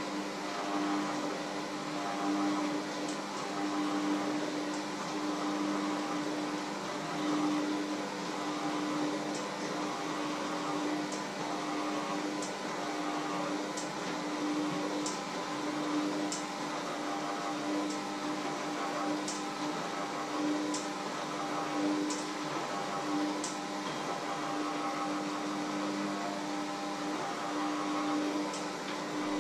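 A steady mechanical hum, as of a small electric motor running, with a few faint clicks scattered through it.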